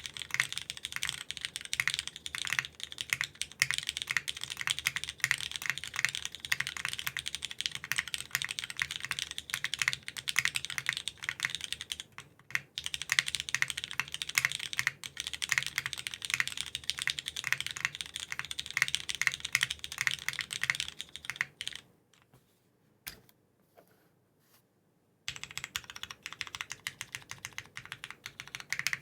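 Fast continuous typing on a Geonworks F2-60 mechanical keyboard with linear Cherry MX2A Black switches, aluminium plate, gasket mount and DCS-profile keycaps: a dense run of key clacks. It pauses very briefly about twelve seconds in, stops for about three seconds a little after twenty seconds in, then resumes.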